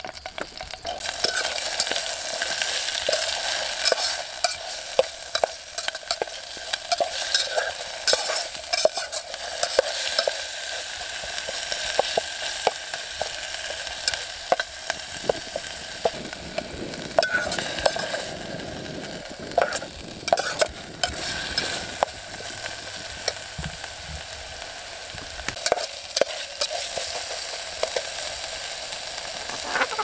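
Chilies sizzling as they are stir-fried in a pan, starting about a second in, with frequent scrapes and clicks of a utensil stirring them.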